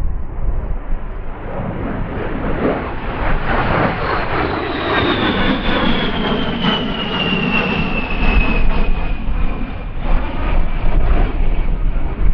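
A USAF A-10 Thunderbolt II's two TF34 turbofan engines as the jet passes, a rushing jet noise with the high fan whine falling steadily in pitch as it goes by.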